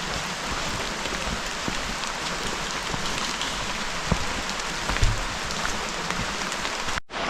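Steady rain falling, with many small drop ticks close by and a couple of low thumps about four and five seconds in. The sound drops out abruptly for a moment near the end.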